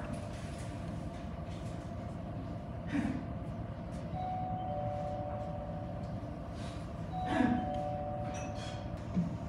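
A steady low rumble of background noise with faint held hums, broken by two brief soft knocks, one about three seconds in and one about seven and a half seconds in.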